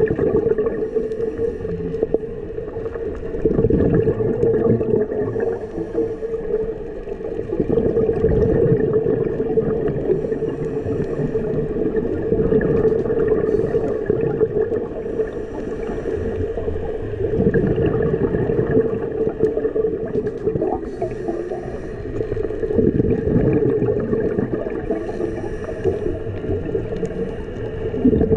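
Scuba diver breathing through a regulator underwater: bubbling exhalations about every four to five seconds over a steady hum.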